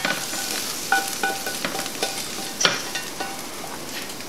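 Butter and hot pepper jelly glaze sizzling in a hot pan, with metal tongs clinking against the pan a few times about a second in as chicken wings are lifted out.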